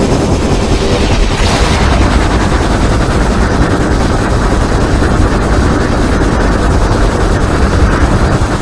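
SpaceGodzilla monster sound effect: a loud, continuous, dense rumble with a fast rattling crackle over a deep low end, with no clear pitched roar.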